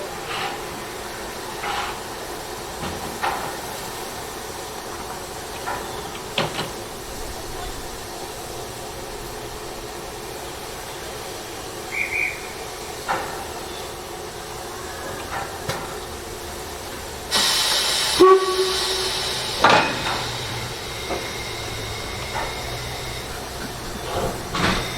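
Narrow-gauge steam locomotive standing with a steady hiss of steam and scattered light knocks. About two-thirds of the way in, a much louder rush of escaping steam sets in suddenly and keeps going.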